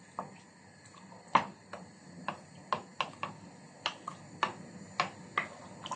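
Wooden spoon stirring chopped zucchini in a steel pot, knocking against the pot's side in a string of sharp clicks, about two a second.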